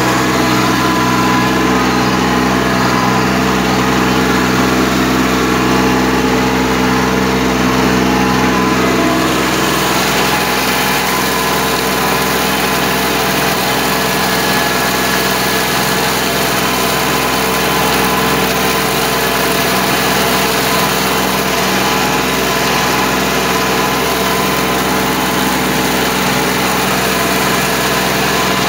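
Kubota B2140 compact tractor's diesel engine running steadily while driving a rotary tiller through a flooded paddy field. The engine note shifts slightly about ten seconds in.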